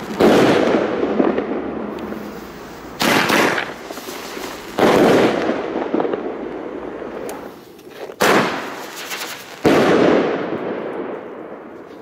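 Funke Vortex Saluts single-shot salute tubes firing: three loud bangs, near the start, about five seconds in and nearly ten seconds in, each followed by a long rolling echo. The second and third bangs each come about a second and a half after a short, quieter launch sound.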